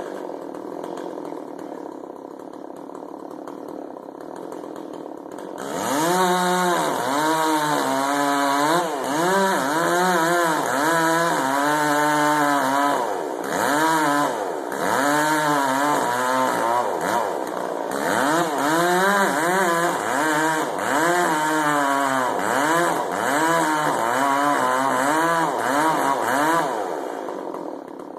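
Gas chainsaw idling, then from about six seconds in running at full throttle, its pitch rising and falling over and over as it cuts wood. It eases back toward idle near the end.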